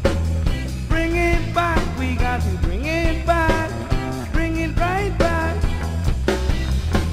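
Recorded rock-style song by a band: a singer's voice over a steady bass line and drums.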